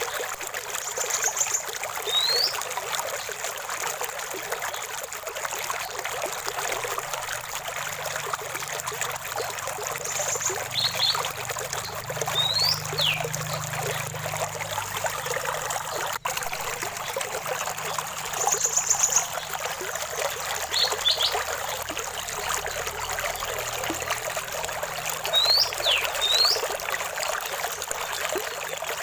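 Small stream trickling and splashing steadily, with a bird calling now and then over it: short rising and falling high notes and a few brief, very high buzzy trills.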